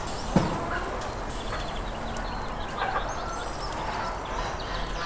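Farmyard birds calling now and then over steady outdoor background noise, with one sharp knock about half a second in.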